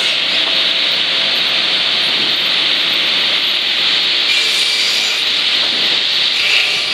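Timbermill MH6C-20 circular-saw lumber machine running, with a steady, loud, even noise of spinning saw blades and its chain conveyor.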